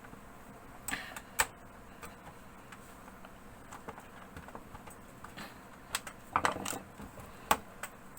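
Snap-in clips of an HP 14-cm0 laptop's plastic bottom case clicking loose as a pry tool works along its edge: a couple of sharp clicks about a second in, then several more from about six to seven and a half seconds.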